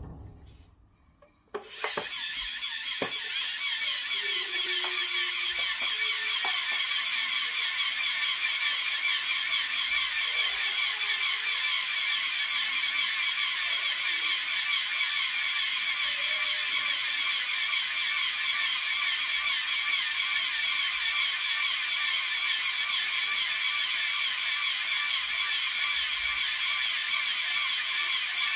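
LEGO Technic pneumatic air compressor, small electric motors driving the pumps, switches on about two seconds in after a few clicks and then runs steadily with a fast, even chatter and buzz.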